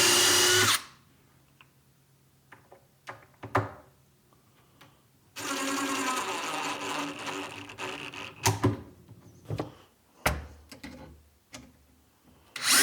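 Power drill running in short bursts as screws are driven to fix drawer slides in a cabinet: one burst ends about a second in, a rougher burst runs for about three seconds in the middle, and another starts near the end. Light clicks and knocks from handling the slides and screws fall between the bursts.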